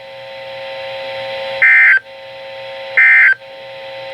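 NOAA Weather Radio EAS end-of-message tones: two short bursts of warbling digital data tones about a second apart, marking the end of the alert broadcast. A steady humming tone that slowly grows louder runs beneath them.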